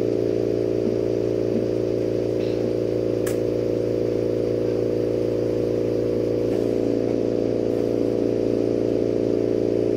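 Steady mechanical hum with several fixed low tones, from motor-driven equipment running at a glass torch bench; the tones shift slightly about six and a half seconds in.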